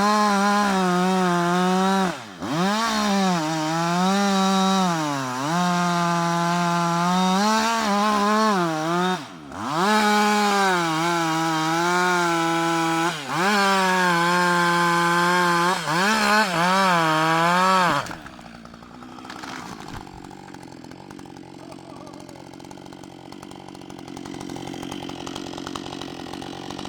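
Husqvarna 560 XP two-stroke chainsaw running at high revs while cutting wood. Its pitch sags a little under load and drops sharply several times as the throttle is let off and squeezed again. About 18 seconds in, it falls back to a low idle.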